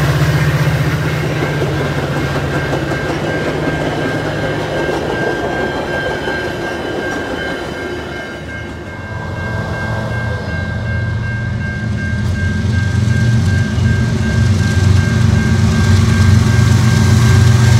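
Metra bilevel commuter cars rolling past a grade crossing while the crossing bell rings steadily. The rumble fades, then the low rumble of a Canadian National freight train's diesel locomotives builds and grows louder over the last several seconds as they approach.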